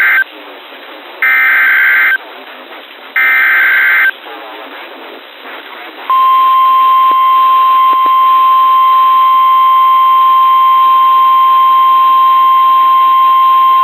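NOAA Weather Radio Emergency Alert System transmission. It begins with the end of one SAME header burst and two more full bursts, each about a second of harsh, warbling digital data tones. About six seconds in, the steady 1050 Hz warning alarm tone starts and holds, signalling that a severe thunderstorm warning follows.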